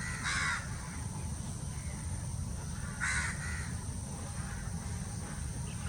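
A bird calling twice, each call short and harsh, one near the start and one about three seconds in, over a steady low rumble.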